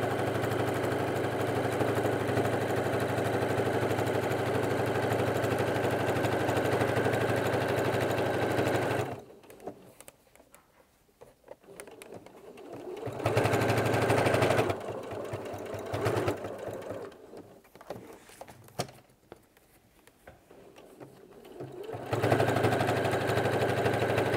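Electric sewing machine stitching through several layers of denim, running steadily, stopping about nine seconds in, running briefly a couple of times in the middle, then running again for the last couple of seconds.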